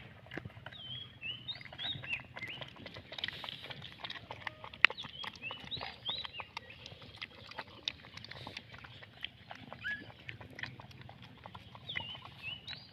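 Puppies lapping and slurping milk from a plastic bowl: a busy run of wet clicks and smacks, with one sharper tap about five seconds in.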